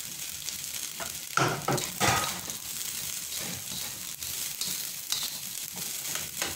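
Fried rice sizzling in an oiled wok while it is stirred and tossed with a spatula, a steady hiss with a few louder scrapes of the spatula against the pan, two close together about a second and a half in.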